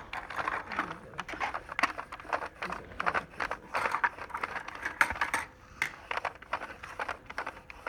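A crayon rubbed quickly back and forth over paper laid on an Action Plates relief plate: a rapid, uneven run of scratchy strokes.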